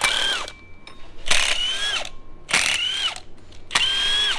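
Milwaukee cordless impact wrench hammering on a bolt on the front of a GM LS engine, in four short trigger pulls, its motor whine rising during each burst and falling away as it is released.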